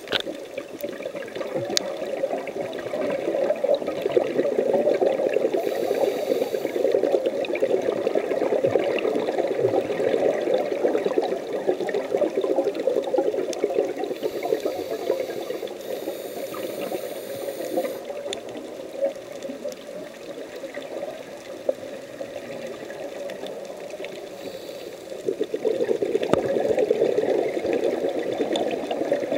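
Underwater sound of a scuba diver's exhaled regulator bubbles, a continuous bubbling crackle that grows louder for long stretches and eases between them.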